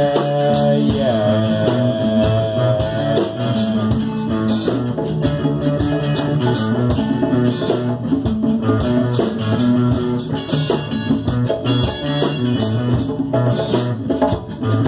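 Instrumental stretch of a live jam: djembe hand drumming under electric guitars playing a steady groove, with a sustained guitar note in the first few seconds.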